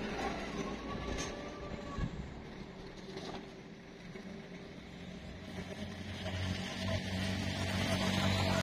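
Roadside traffic with a motorcycle engine humming, coming closer and growing louder over the last few seconds.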